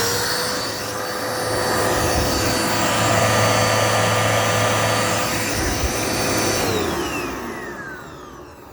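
Dirt Devil Multi-Surface upright vacuum running steadily, then switched off about six and a half seconds in, its motor whine falling as it spins down.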